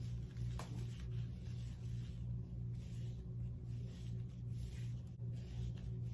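Gloved hands working thick hair dye through a section of hair, giving faint squishing and rustling sounds, with a small click about half a second in. A steady low hum runs underneath.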